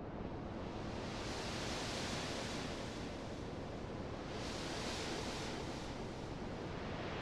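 Soft, steady wash of noise like surf, swelling and fading twice.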